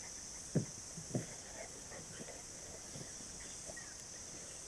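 A steady high insect chorus, with two short, sharp low sounds about half a second and a second in and a couple of fainter ones later.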